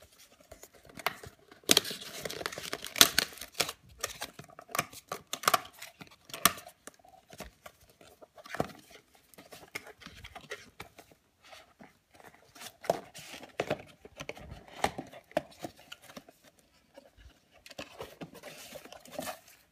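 Cardboard product box being torn open by hand: paper and the flap's seal tearing, with a dense run of tearing about two seconds in, then scattered scrapes, clicks and rustles of the cardboard.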